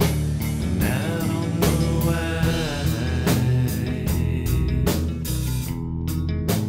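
Rock song with electric guitar, bass and a drum kit playing a steady beat, and a lead line that bends up and down in pitch in the first half.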